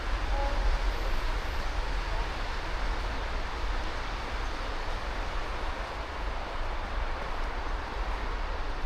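Steady city street ambience: a continuous hiss with a low, unsteady rumble underneath.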